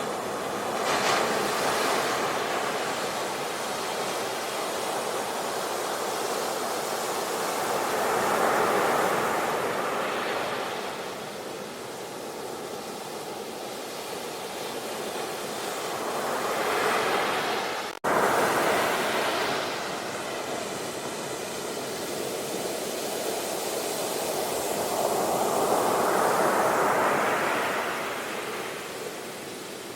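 Ocean surf: waves breaking and washing in, swelling and fading about every eight seconds. Shortly past halfway the sound cuts out for an instant, then resumes.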